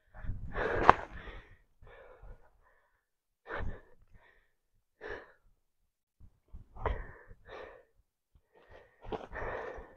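Intermittent rustling and scraping as a hooped fishing keepnet is handled to work out carp whose fins snag in the mesh. A sharp click comes about a second in.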